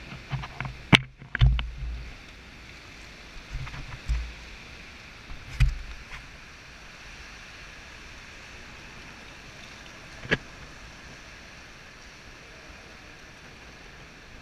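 Kayak paddling inside a sea cave: several sharp knocks and splashes of paddles against water and hull in the first six seconds, then one more about ten seconds in, over a steady hiss of water.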